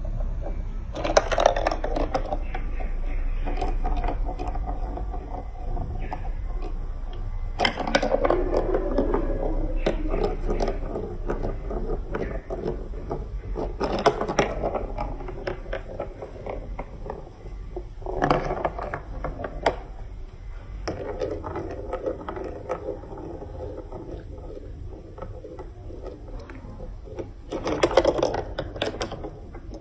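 Marbles rolling and clattering down a building-block marble run: a continuous rolling rattle with many small clicks, and louder clattering bursts about a second in, near eight, fourteen and eighteen seconds, and near the end.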